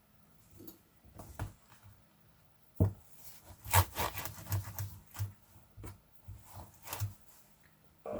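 Handling noise: a scattered series of light clicks and knocks with faint rubbing as a laptop is moved and handled on a workbench, busiest about three to five seconds in.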